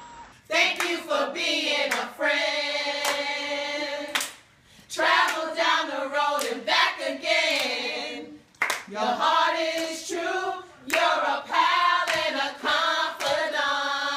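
A group of women singing together, with hand claps through the song; some notes are held long between shorter phrases.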